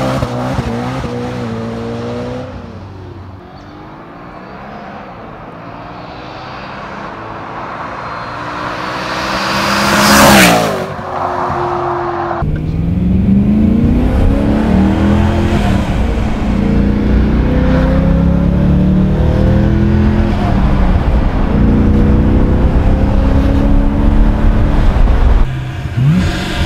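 Supercharged BMW E92 M3's V8 through a catless, straight-piped Megan Racing exhaust. It first pulls away, fades, then comes back and passes close and loud about ten seconds in, its pitch dropping as it goes by. Then, heard from inside the cabin, it accelerates hard through the gears, the revs climbing and dropping at each shift.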